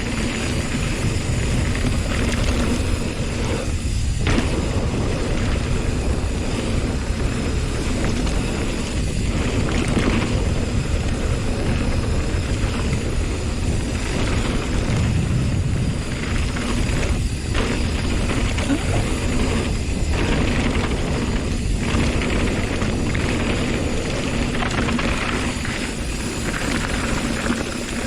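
Wind rushing over the microphone, with the rumble and rattle of a hardtail mountain bike riding fast down a rough downhill trail.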